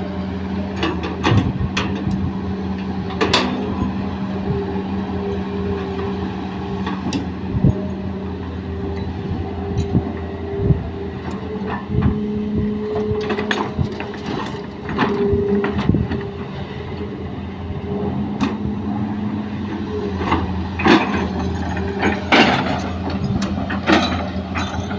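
Hitachi excavator's diesel engine running steadily while it loads soil into a dump truck, with irregular sharp knocks and clanks from the bucket and the load dropping into the truck bed.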